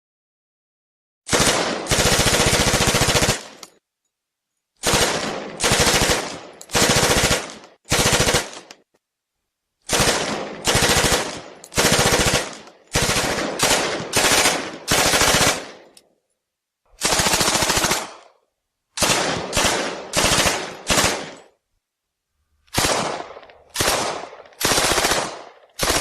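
Thompson submachine gun firing short bursts of automatic fire, each burst about half a second to a second long, in clusters of several bursts separated by brief pauses.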